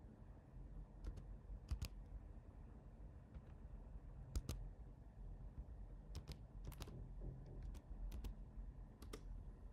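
Computer keyboard keys clicking one at a time, slowly and unevenly, with pauses between keystrokes: a password being typed in with care.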